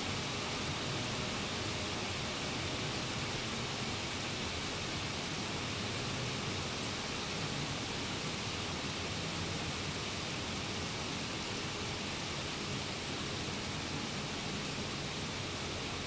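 Steady rain falling onto a flooded court, an even hiss with no breaks or separate drops standing out.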